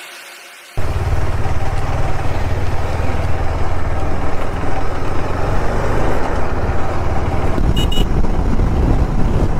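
A KTM 390 Adventure's single-cylinder engine runs steadily on the move, a low pulsing rumble mixed with wind rush, cutting in less than a second in. Near the end come a couple of brief high beeps.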